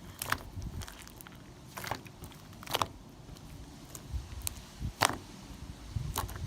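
Slime being squeezed and worked by hand, giving scattered sharp clicks and pops, about one a second, over soft squishing.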